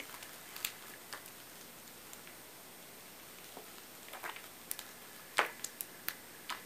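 Faint scattered small clicks and taps from handling a Zippo lighter insert and a can of lighter fluid while filling the lighter. The taps come more often in the second half, the loudest about five and a half seconds in.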